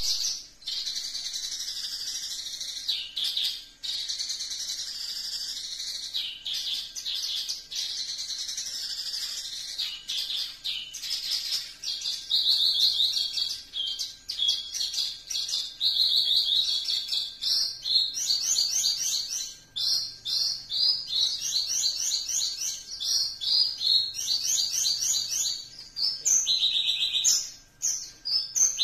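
Caged Javan bush lark (branjangan) singing a long, unbroken song. For the first ten seconds it repeats a wavering, high phrase every two to three seconds, then from about twelve seconds in it switches to fast runs of rapid trilled notes.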